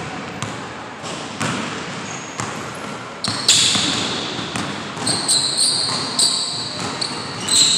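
Basketball dribbled on a hardwood gym floor, bouncing about once a second. From about three seconds in, sneakers squeak sharply on the court as the player drives to the basket.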